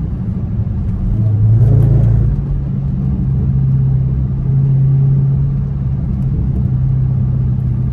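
Car engine and road noise heard from inside the cabin while driving: a low, steady drone that rises in pitch and gets louder about a second and a half in as the car speeds up, then holds steady.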